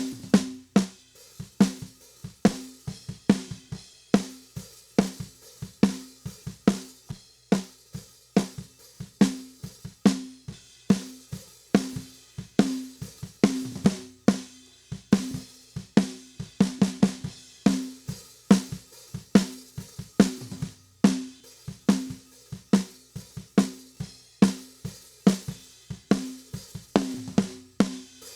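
Recorded drum kit playing a steady beat: kick drum, a ringing snare and cymbals struck in an even, repeating pattern.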